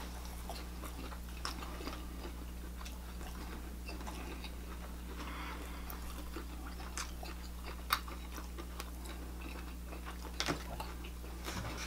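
People chewing food, the soft mouth clicks and smacks of eating a pita wrap, with one sharper click about eight seconds in. A steady low hum runs underneath.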